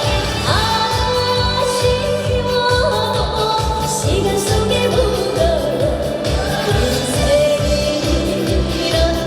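Trot song with singing over a steady, evenly repeating beat, played loud.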